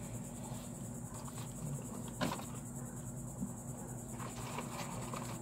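Insects trilling steadily, a high, finely pulsing sound, over a low steady hum, with one sharp click about two seconds in.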